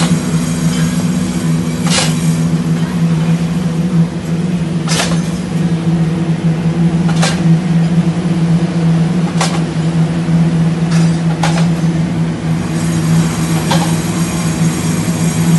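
Large concrete slipform paver running, a steady deep machine hum with sharp knocks every couple of seconds, about seven in all.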